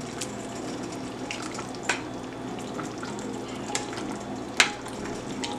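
Metal spoon stirring a pot of chicken and pineapple simmering in a sauce thickening with cornstarch and water, over a steady bubbling hiss. The spoon knocks sharply against the steel pot twice, with a few lighter clicks between.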